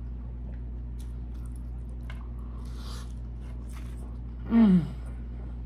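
A person chewing a mouthful of loaded fries with faint wet mouth clicks. About four and a half seconds in comes a short closed-mouth "mmm" whose pitch falls, loud against the quiet chewing.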